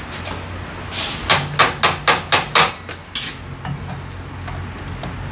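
A quick run of about seven sharp metallic knocks, roughly four a second, then one more: a hand tool knocking against metal parts of a small motorcycle's rear end during repair, over a steady low hum.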